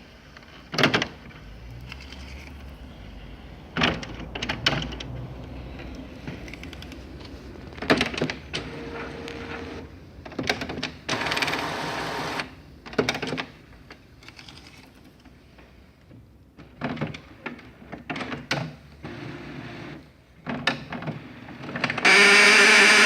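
HP Officejet 7110 inkjet printer's mechanism making irregular clicks and knocks, with a longer rattling run about halfway through. This is the strange noise it makes while failing to print anything. Near the end a loud steady buzzing tone starts.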